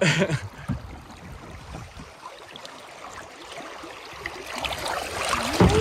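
Creek water rushing and splashing along a canoe's hull as it coasts down a shallow riffle, growing louder toward the end.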